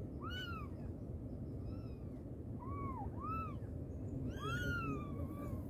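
Cat meowing: five short high-pitched mews, each rising and then falling in pitch. The last, about four seconds in, is the loudest and is drawn out for over a second.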